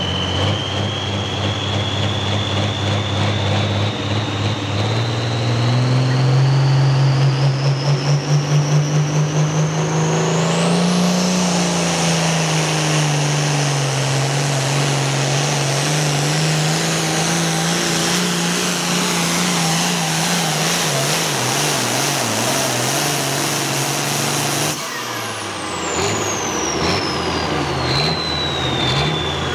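Turbocharged International Super Pro Farm pulling tractor's diesel engine running under full load, its turbocharger whine climbing steadily in pitch for the first ten seconds or so. Near the end the throttle comes off suddenly, the engine drops back and the turbo whine falls away as it spools down after the pull.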